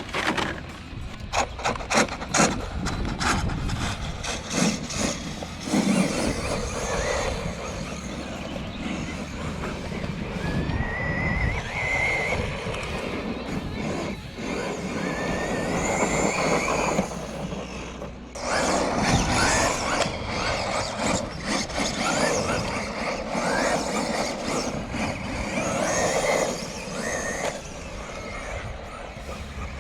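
A Traxxas Slash RC truck's brushless electric motor whining and rising in pitch as it accelerates, its tires spinning over dirt and gravel. A run of sharp clicks and knocks comes in the first few seconds.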